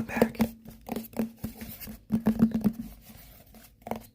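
ASMR tapping on a hard object that rings faintly with each tap. The taps come in quick runs: a fast flurry about two seconds in, a softer scratching stretch after it, then tapping again near the end.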